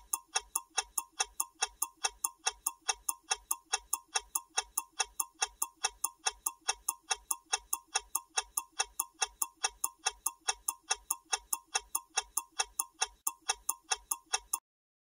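Clock-style ticking sound effect of a quiz countdown timer, about four even ticks a second, which stop shortly before the end as the countdown runs out.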